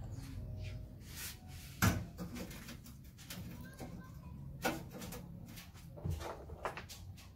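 Metal bracket being handled and set down on a workbench: a few light knocks and taps, the sharpest a little under two seconds in, over a faint low steady hum.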